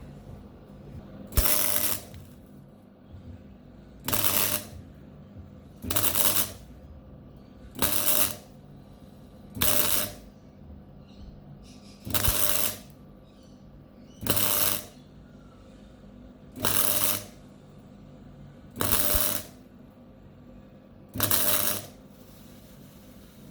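MIG welder arc on steel firing ten short spot-weld pulses, each lasting about half a second to a second, roughly every two seconds.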